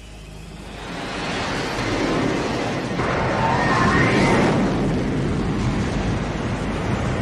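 Fighter jet engines running at full power for a carrier catapult launch: a loud rushing noise that builds over the first two seconds and then holds, with a brief higher whine about three to four seconds in.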